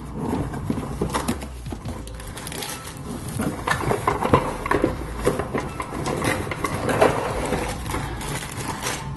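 Rustling and irregular light knocks and scrapes as a cardboard box is handled and plastic toy parts in plastic bags are lifted out of it.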